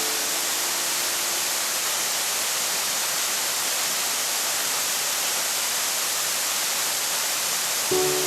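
A roughly 16-metre waterfall pouring steadily, an even rushing hiss of falling water. Background music fades out in the first two seconds and comes back in just before the end.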